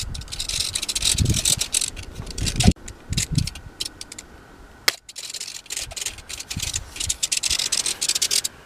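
Gusty wind buffeting the microphone in uneven low rumbles, with rattling, scraping clicks throughout and a faint steady high tone underneath.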